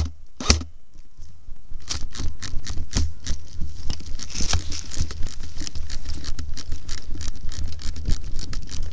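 A sharp knock about half a second in, then running footsteps crunching through dry leaves and grass, about three to four strides a second, with a low rumble from wind and movement on the body-worn microphone.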